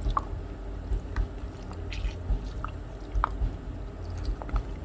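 Wet squishing with irregular light clicks and taps as raw meat coated in soy sauce and seasoning is handled and mixed in a bowl.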